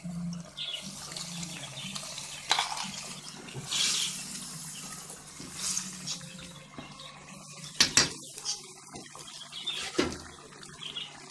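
Tomato sauce simmering in a metal pot as dry rice is poured into it, a wet bubbling hiss. Two sharp knocks against the pot come near the end.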